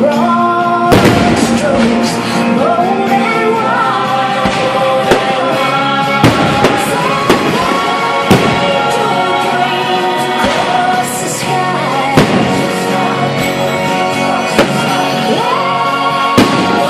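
Fireworks bursting, a sharp bang every second or two, over a loud pop soundtrack with a singing voice.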